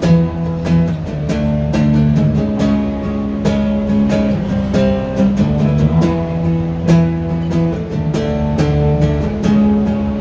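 Live acoustic guitars strumming chords in a steady rhythm: an instrumental break in a Cantopop song, with no singing.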